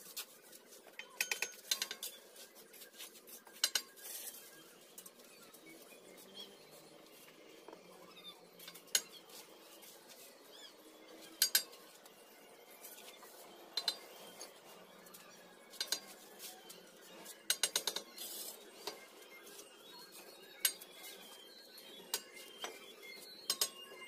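Bricklaying: a steel trowel tapping and scraping on fired clay bricks and mortar, with bricks clinking against each other as they are handled. Sharp clinks come singly and in small clusters every second or two, at irregular intervals.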